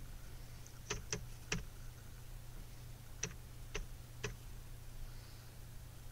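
Six sharp clicks at a computer: three in quick succession about a second in, then three more about half a second apart past the three-second mark, over a faint steady low hum.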